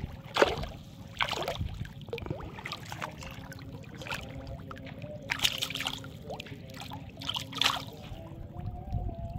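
Splashing and sloshing in shallow water as a hand grabs at a large silong catfish struggling at the surface, with several sharp splashes, the loudest about half a second in. A faint steady hum runs underneath.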